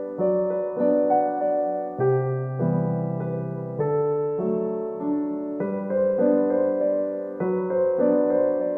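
Background music played on a soft electric piano: gentle sustained chords that change about every second or two.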